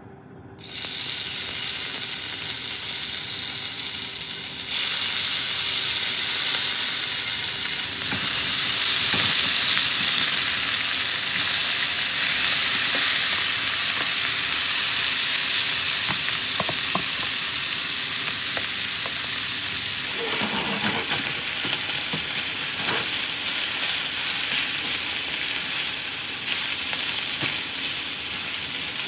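Kimchi frying in hot oil in a black iron frying pan: a loud, spattering sizzle that starts suddenly about a second in and grows louder a few seconds later. Further on, rice and egg are stir-fried into it, with a spatula clicking and scraping against the pan over the sizzle.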